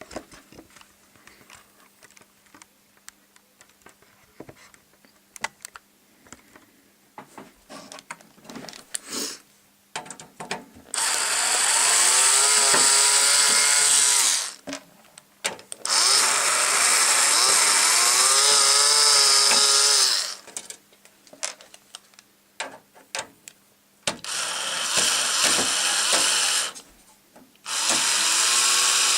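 Electric screwdriver running in four bursts of a few seconds each, its whine bending up and down in pitch, as it backs out the screws holding the rear case fan of a computer. Light clicks and knocks of handling come before the first burst.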